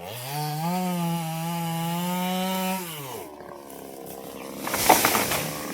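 Chainsaw engine revved up, held at high revs for about two seconds, then dropping back toward idle. Near the end comes a short, rough crackling burst.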